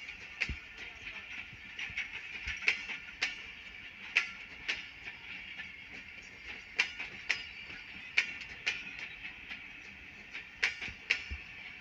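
Passenger coaches rolling past, their steel wheels clicking over rail joints in irregular knocks, often in pairs about half a second apart, over a steady high-pitched hiss.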